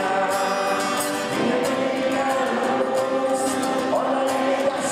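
A group of children singing a song together in unison, accompanied by an acoustic guitar.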